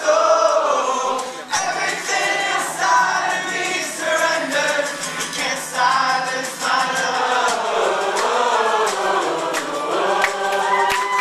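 A band of male voices singing together as a group, with acoustic guitar and sharp drum hits, in a live concert recording that sounds thin, with no bass.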